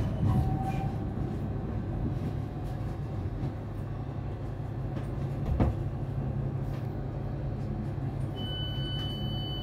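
SWR Class 455 electric multiple unit coming to a stand and then standing with a steady low hum. There is one sharp knock about halfway through, and a high electronic beep starts near the end.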